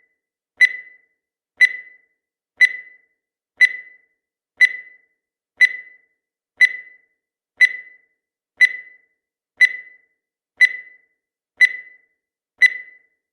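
Countdown timer sound effect ticking once a second: thirteen identical short, sharp ticks, each with a brief high ring that dies away quickly.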